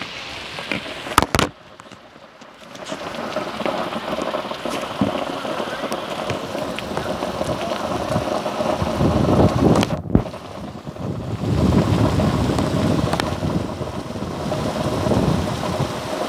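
Heavy rain pouring down, a dense steady hiss of rain on the street and roofs, heard from a phone held out of a window into the downpour. A few sharp handling clicks come about a second in, the rain gets much louder about three seconds in, and it swells louder a few times after that.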